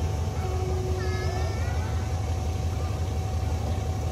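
Diesel engine of a standing passenger train idling: a steady low rumble with a constant hum above it.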